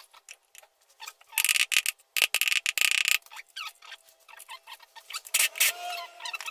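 Hands working on a gearbox on the bench: many small clicks and knocks, with three short bursts of hiss about a second and a half in, around two seconds in, and near the end.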